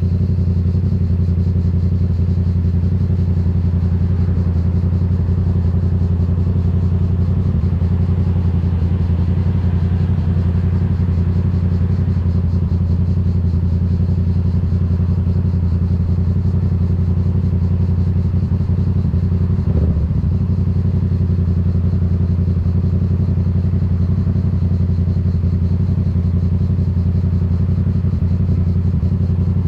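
Yamaha MT-07 689 cc parallel-twin engine, through a Black Widow aftermarket exhaust, running steadily at unchanging revs. A brief knock comes about two-thirds of the way through.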